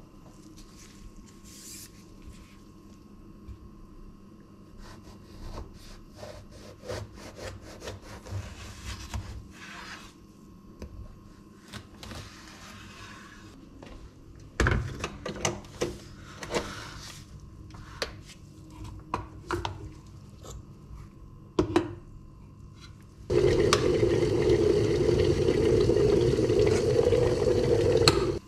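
Kitchen handling: scattered clicks and knocks of things picked up and set down on the counter. Near the end comes about five seconds of loud, steady running water that starts and stops abruptly.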